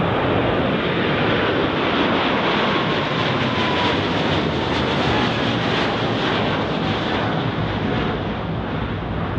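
Boeing 777-300ER's twin GE90-115B turbofan engines at takeoff power: a steady jet roar with a faint whine that slowly falls in pitch. The roar eases slightly near the end.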